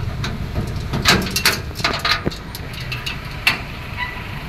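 Truck engine idling with a steady low rumble, with scattered knocks and clicks over it.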